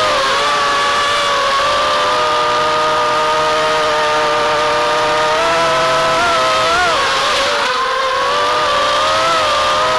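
FPV racing quadcopter's brushless motors (Titan 2204 2300 kV) and propellers whining in flight, several steady pitches that shift together with throttle, wavering and dipping briefly about seven seconds in.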